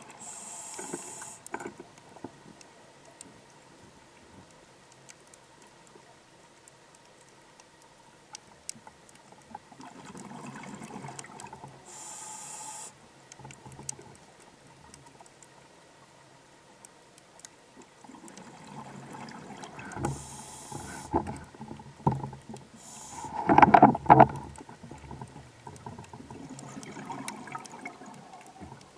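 Scuba regulator breathing underwater: a few short hissing inhalations and gurgling rushes of exhaled bubbles, with quiet stretches between breaths and the loudest bubbling near the end.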